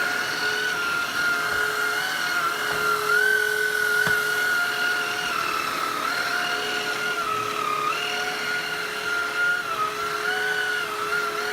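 Hoover Fusion Pet cordless stick vacuum running, with its electric brush roll: a steady, really quiet motor whine whose pitch dips and rises again several times over a fixed lower hum.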